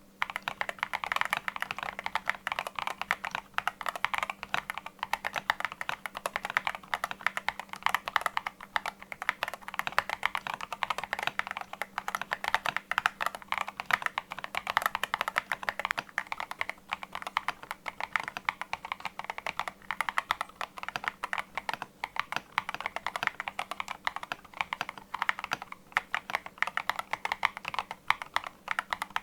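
Continuous fast typing on an Epomaker RT100 mechanical keyboard with Epomaker Flamingo switches: a dense, irregular stream of key clicks and clacks.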